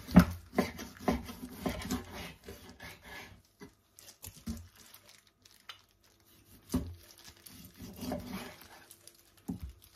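Kitchen knife cutting and scraping raw pork back ribs on a wooden cutting board as fat is trimmed off, with irregular knocks of the blade against the board, the sharpest right at the start, and the crinkle of plastic food-prep gloves.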